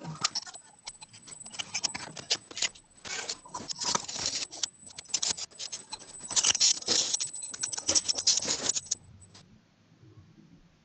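Rapid, irregular clicking and clattering, typical of typing on a computer keyboard, stopping about nine seconds in.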